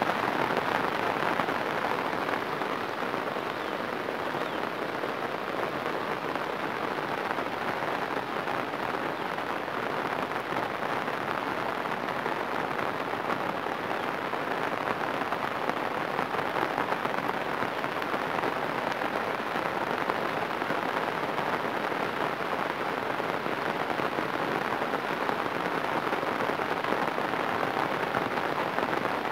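Heavy rain falling steadily on floodwater over paddy fields, a constant hiss of drops on the water.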